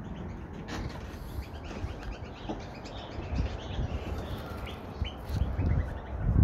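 Australian magpie calling close by with a run of short, quick high notes, over low bumps and rumble on the microphone that grow loudest near the end.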